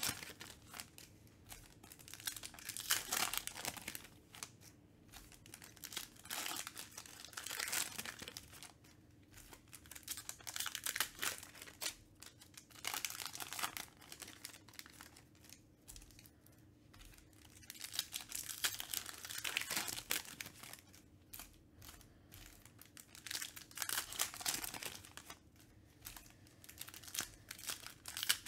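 Plastic trading-card pack wrappers crinkling and tearing as packs are ripped open by hand, in irregular bursts.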